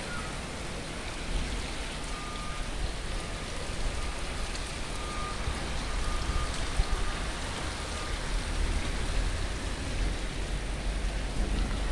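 Steady rain falling, an even hiss of drops on surfaces.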